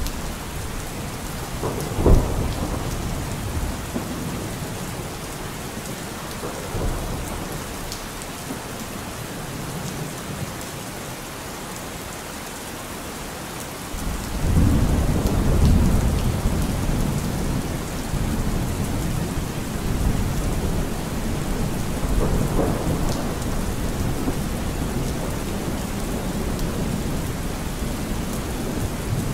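Steady rain with thunder: a sharp crack about two seconds in, then a long, deep rumble that swells up about halfway through and rolls on with further rumbles.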